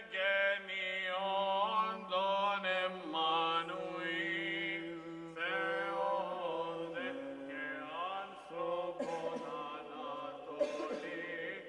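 Byzantine chant sung by an Orthodox cleric: a solo male voice in long, ornamented lines over a steady low drone that shifts down in pitch about seven seconds in.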